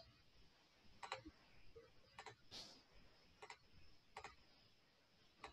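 Near silence with a few faint, sharp clicks spaced about a second apart: a computer mouse being clicked.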